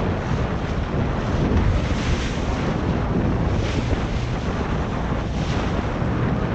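Wind buffeting the microphone over steady sea and water noise.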